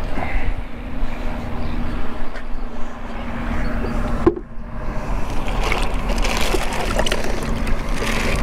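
Wind rumbling on a hat-mounted camera's microphone over a steady low hum, with a few light knocks and a brief dropout about four seconds in.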